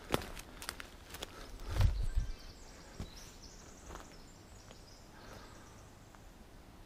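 Footsteps crunching over twigs and dry forest litter, with a heavier thud about two seconds in; after that the steps fade to quiet outdoor ambience with faint high chirps.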